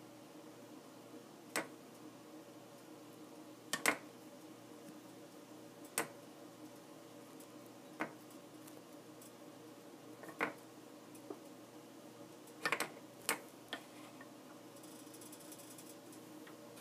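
Sparse light clicks and taps of hands and a small plastic cup on a wooden board, about ten in all with a quick cluster near the three-quarter mark, over a steady faint hum.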